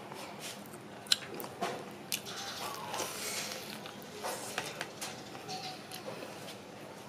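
A person biting into and chewing a crispy battered fried chicken drumstick, with scattered sharp crackles from the crisp coating.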